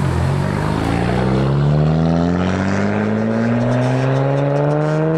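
Nissan Skyline R34 GT-R's twin-turbo straight-six accelerating away under load. After a brief dip at the start, its note climbs steadily in pitch without a break.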